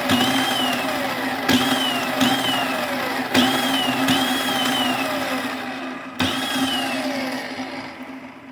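Razor Power Core E95 electric scooter's hub motor spun up in repeated short bursts, about six, each starting with a click and followed by a whine that falls away as the wheel coasts down, over a steady hum. The motor running shows the newly replaced controller relay working.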